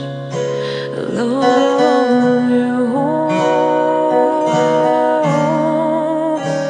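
Acoustic guitar music with long held notes, some of them wavering, changing every second or so.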